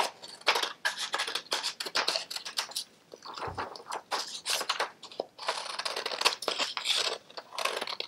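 Scissors snipping through a sheet of paper in a quick series of cuts, with the paper rustling as it is handled. There is a brief pause about three seconds in.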